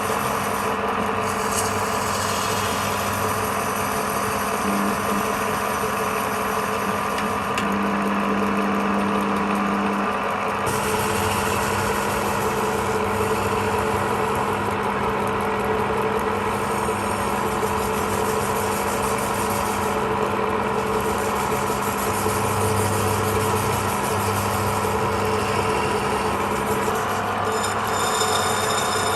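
Wood lathe running steadily, its motor hum mixed with the noise of the spinning workpiece; the tone shifts about ten seconds in and again near the end.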